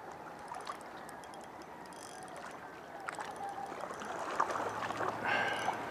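Water lapping and trickling gently, with a few faint scattered clicks.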